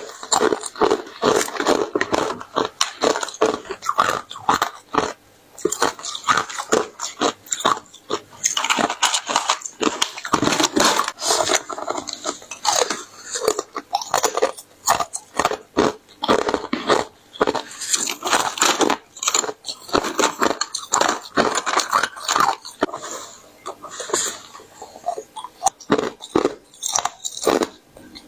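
Small foot-shaped pieces of pure ice being bitten and chewed close to the microphone: a dense run of crisp cracks and crunches, with a few short pauses.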